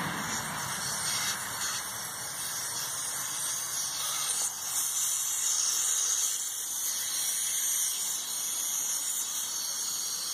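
Air hissing steadily out of a Penguin amphibious ATV's low-pressure rear tyre through the valve stem as the valve core is unscrewed, letting the tyre down.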